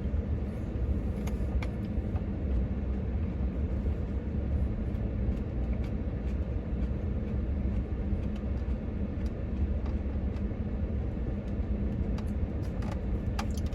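Steady low vehicle rumble inside a truck cab, with a few faint clicks over it.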